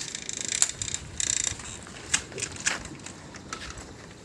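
Rapid mechanical ratcheting clicks in two short bursts, then a few separate clicks.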